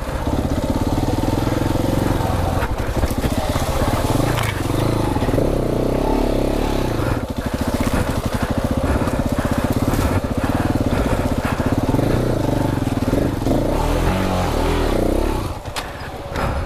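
KTM 690 Enduro R's single-cylinder four-stroke engine pulling along a rough dirt trail, its revs rising and falling with the throttle, with knocks from the bike hitting bumps. Near the end the engine drops to a lower, quieter run.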